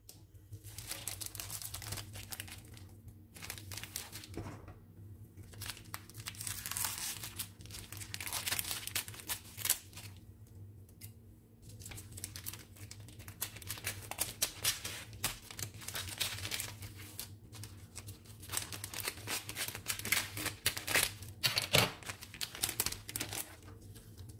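Plastic wrapper of a packet of Spring Home spring roll pastry crinkling and tearing as it is opened and peeled back by hand. The crackles come in irregular spells with short pauses, over a faint steady low hum.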